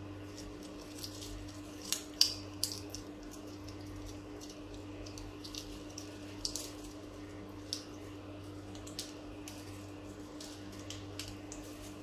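African grey parrot biting and crunching a piece of food held in its foot: scattered crisp clicks and cracks from its beak, the loudest cluster about two seconds in. A steady low hum runs underneath.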